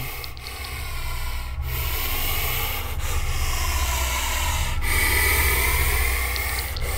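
Puff adder hissing: a run of loud hisses of exhaled air, each about one and a half to two seconds long with short breaks between, the one near the end the loudest. It is a warning hiss meant to intimidate an enemy.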